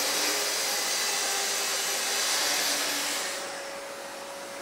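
Festool plunge-cut circular saw running along its guide rail, cutting a wooden panel to length with dust extraction through the attached hose. A little over three seconds in, the saw is switched off and the noise fades to a low hum.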